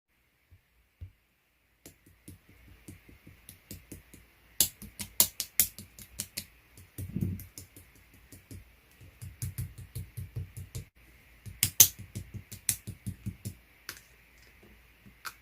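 Slime being pressed and worked by hand, making irregular runs of crisp clicks and pops, with a softer low squish about seven seconds in.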